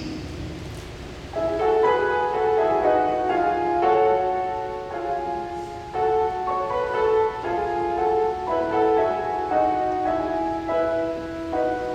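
A grand piano playing a melody of struck notes, starting about a second and a half in.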